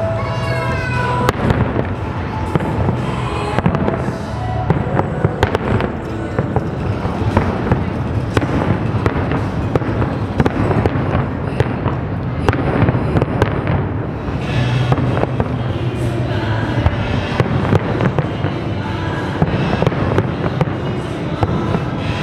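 A large aerial fireworks display going off continuously: a dense run of sharp bangs and crackles over a low rumble, with music and voices underneath.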